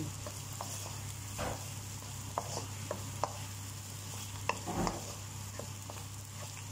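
Wooden spatula scraping and tapping against a wok, with irregular strokes, as egg, peas and carrots are stir-fried over a steady sizzle of oil.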